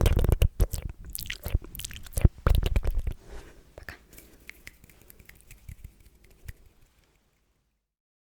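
Close-up sticky, wet mouth sounds: rapid clicks and smacks of the tongue and lips, dense for about three seconds, then sparser and fainter, stopping about seven seconds in.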